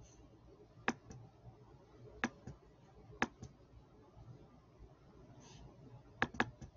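Computer mouse button clicking in four quick groups, mostly double-clicks.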